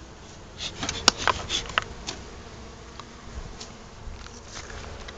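Honeybees buzzing steadily around a hive entrance. A quick cluster of sharp clicks and rustles comes about a second in.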